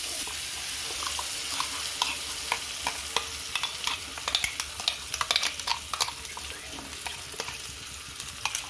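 Freshly added spice paste and tomato masala sizzling in hot oil in a kadai, with a spatula scraping and clicking against the pan, mostly in the middle of the stretch.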